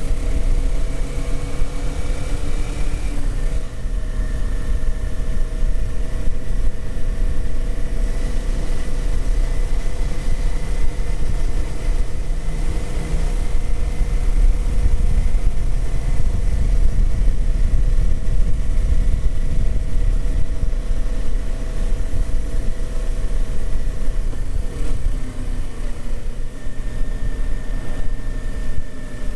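Kawasaki Z400 parallel-twin engine running steadily under way, with heavy wind rumble on the microphone. The engine note steps down about three seconds in, and dips and rises again shortly before the end.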